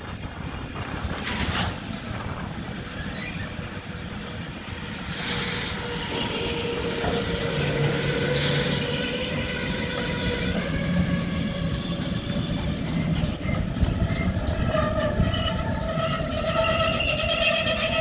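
Freight train of double-deck car-carrier wagons rolling past with a steady rumble of wheels on rail. A squealing tone from the wheels starts about six seconds in, rises slightly in pitch, and grows into several high squealing tones near the end.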